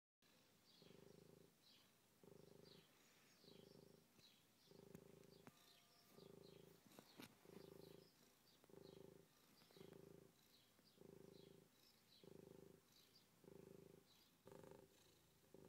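A cat purring in a slow, even rhythm of about one low pulse a second, with faint high squeaks between the pulses.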